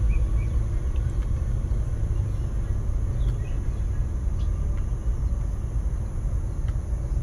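Steady low rumble inside a truck cab, with a few faint, short clicks.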